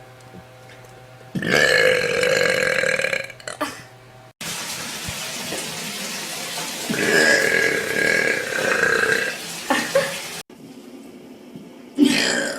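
A woman's long burps, several in a row: one lasting about two seconds, another about two and a half seconds with a short one right after it, and a new one starting near the end.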